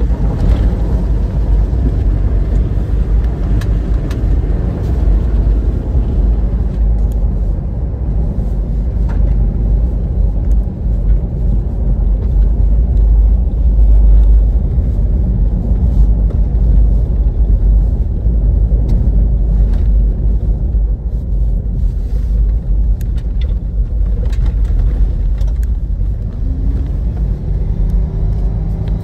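Cabin noise inside a 2018 Toyota 4Runner driving fast on a dirt road: a loud, steady low rumble of tyres on the gravel surface and the running engine, with scattered clicks and knocks.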